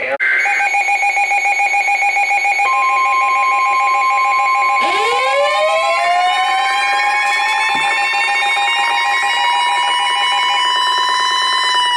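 Layered emergency alert tones opening a severe thunderstorm warning: a rapidly pulsing beep, joined about 3 seconds in by a steady high tone and about 5 seconds in by a siren winding up and then holding, all sounding together to the end.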